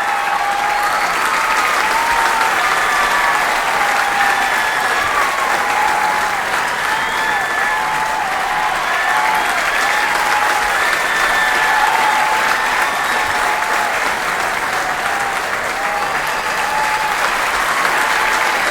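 A large crowd applauding steadily, a dense unbroken patter of clapping. Short pitched calls rise and fall over the clapping every second or so.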